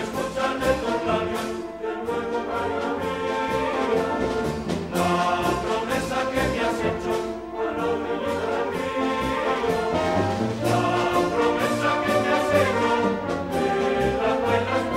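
A charanga, a street band of sousaphones, trumpets, trombones and saxophones, playing a tune over a steady drum beat.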